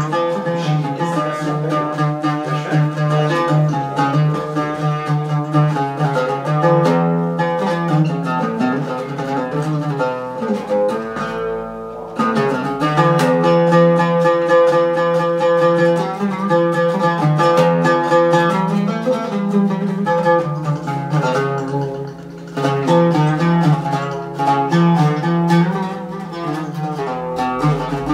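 Solo oud taqsim, an improvisation in maqam rast: fast runs of plucked single notes over a repeated low note, with a short breath in the playing about halfway through.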